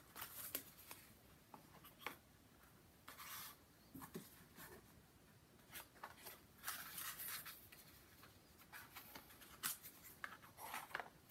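Faint handling of small cardboard boxes: scattered light taps and clicks as they are set down on a cardboard board, with brief scratchy sliding of paper on paper.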